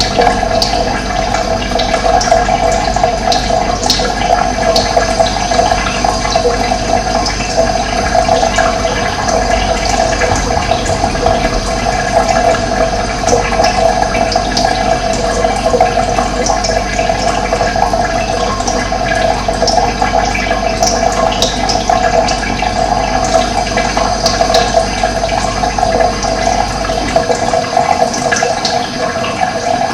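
Steady rush of running water with birds chirping now and then over it.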